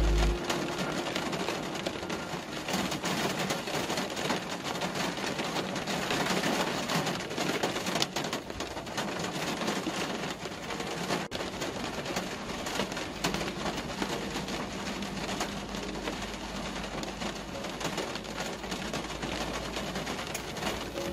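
Steady rain on a moving car, pattering on the body and windscreen, with wet-road tyre noise. A low road rumble grows about halfway through.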